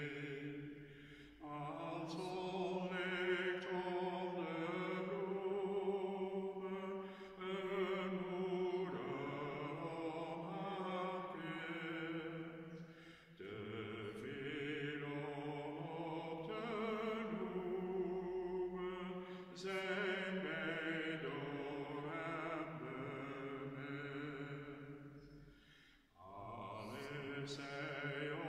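Slow devotional singing: long held sung notes in phrases, with short breaks between the phrases.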